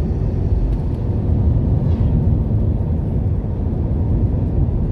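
Steady rumble of engine and tyre noise inside a moving car's cabin.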